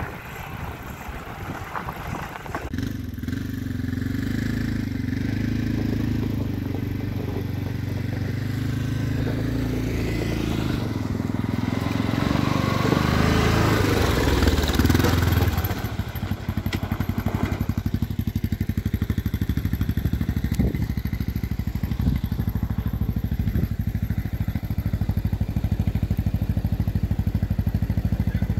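ATV engines running along a dirt track. The engine note climbs and gets louder toward the middle, then drops suddenly about sixteen seconds in to a steady, rapid beat.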